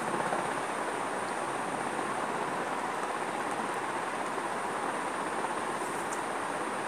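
Steady, even hiss of background noise with no speech, unchanging throughout.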